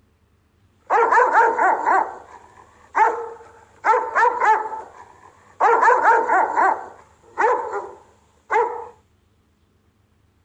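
Rottweiler giving deep guard-dog warning barks, in repeated bursts of several quick barks separated by short pauses.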